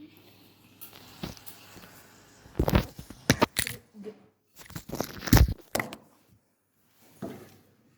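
Kitchen handling noises: rustling and tearing with sharp knocks and clatter, in two bursts about three and five seconds in and once more near the end.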